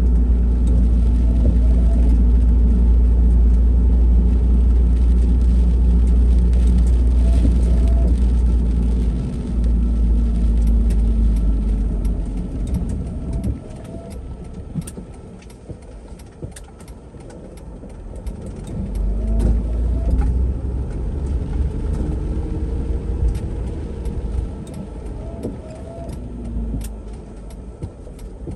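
Street traffic on a wet road: a heavy low rumble for the first dozen seconds that then eases off, with cars passing and one rising in pitch as it pulls away near the middle.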